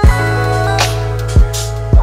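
Background music with a steady drum beat, deep bass and held instrument notes.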